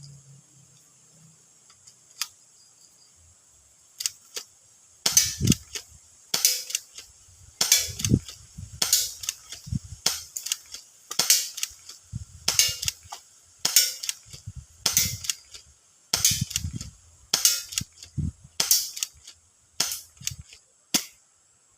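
M-206 spring airsoft gun firing single shots with sharp cracks, about one every second and a bit, around fourteen in a row, with a rustle and knock between shots.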